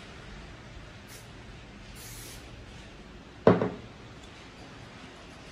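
Aerosol cooking spray hissing in two short bursts onto the plates of an electric waffle maker to grease them. About three and a half seconds in comes a single sharp knock as the spray can is set down on the table.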